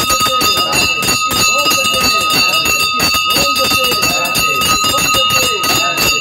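Temple bells ringing continuously with rapid, dense strikes, a steady ringing tone held throughout, with people's voices underneath.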